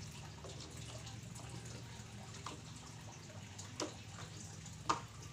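Light plastic knocks and clicks as a cut plastic bottle is pushed and twisted onto a PVC pipe: three short knocks, the loudest near the end, over a faint steady hum and trickle of running water.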